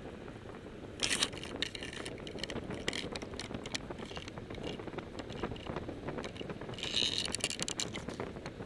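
Airflow rushing over the microphone of a paramotor gliding with its engine stopped, with no motor running. Bursts of sharp crackling and rattling come about a second in and again around seven seconds.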